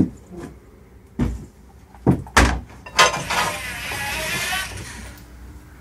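Heavy footsteps and knocks on a boat's hull and floor as someone climbs aboard and moves about, then a rasping scrape lasting under two seconds.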